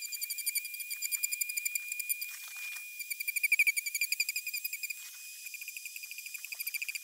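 Dremel 4000 rotary tool running with a steady high whine, the whine pulsing rapidly as its sanding bit is worked against EVA foam.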